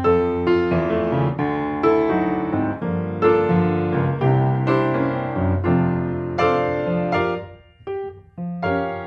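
Instrumental background music: a piano playing a slow melody of struck notes, each note fading after it sounds. The music dips briefly near the end.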